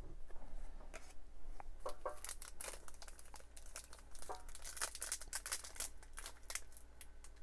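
Plastic wrapper of a Topps Gallery baseball card pack crinkling and tearing as it is opened by hand, a run of irregular small crackles.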